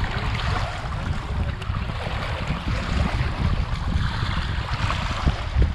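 Small waves lapping and washing over a pebbly lake shore in a steady rush, with wind buffeting the microphone in a low, uneven rumble.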